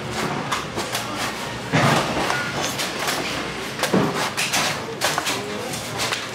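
A blade chopping into coconuts: sharp knocks, two heavier blows about two seconds apart among lighter ones, over a steady market hubbub with scattered voices.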